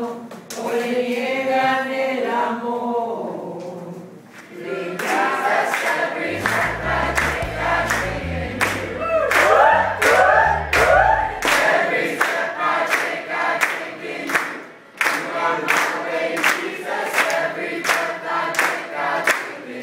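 A roomful of people singing together. After a short lull about four seconds in, the singing grows louder, with steady hand-clapping to the beat.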